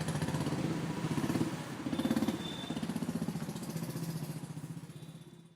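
Street traffic with motorcycle engines running past, a quick pulsing engine note rising and falling as they go by. The sound fades out near the end.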